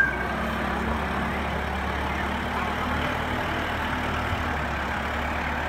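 Farm tractor engine running steadily at low revs as it slowly moves a hay wagon.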